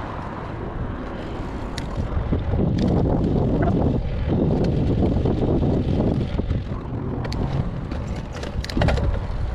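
Wind buffeting the microphone on a moving road bike, over the rumble of the tyres rolling on pavement, with a few sharp clicks, most of them near the end.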